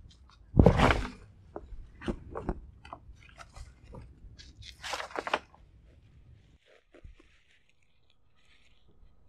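A long bamboo pole knocking and rattling through the leafy branches of a small jambu tree: one loud rustling hit about half a second in, then a run of lighter knocks and rustles, with another rustling burst around five seconds in. After that only faint rustling remains.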